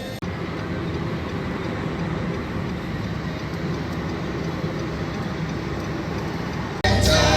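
Steady road and engine noise of a moving car heard from inside the cabin, an even low rumble. Near the end, gospel music with singing cuts in suddenly and louder.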